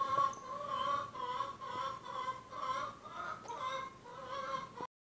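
Domestic hens clucking: a steady run of drawn-out calls, about two a second, that cuts off suddenly near the end.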